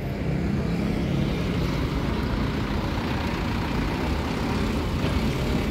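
Light truck's diesel engine running steadily as the truck drives into the yard.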